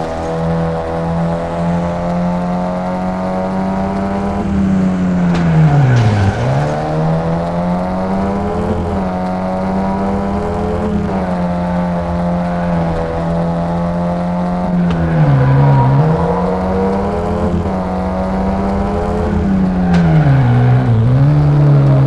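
A motor vehicle engine running at steady revs. The pitch drops sharply and climbs back three times: about a quarter of the way in, past the middle, and near the end.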